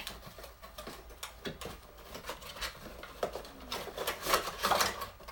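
Cardboard smartphone box being worked open by hand: irregular scrapes, rubbing and small taps of cardboard, busiest about four seconds in.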